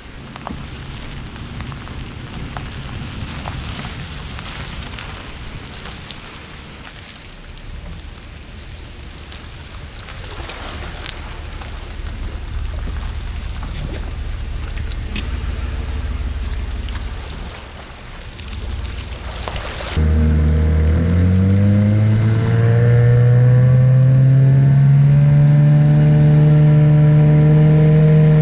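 Boat motor starting about two-thirds of the way in, rising in pitch as it speeds up, then running steadily and loud at speed. Before that, a low rumble with scattered knocks.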